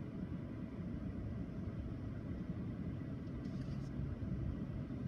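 Steady low vehicle rumble heard from inside a stopped car's cabin, its engine idling, with cars passing on the road outside.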